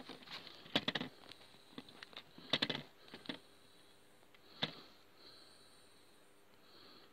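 Faint clicks and rustles of handling close to the microphone, with soft sniffing breaths between them.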